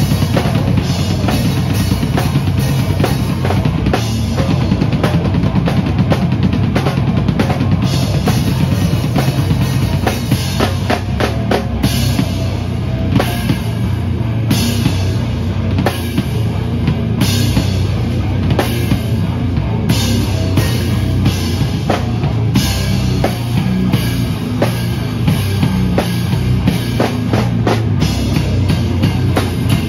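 A drum kit played hard at a live rock show, heard from right beside the kit: bass drum, snare and cymbals hit densely and without a break, loudest over the guitar of the full band.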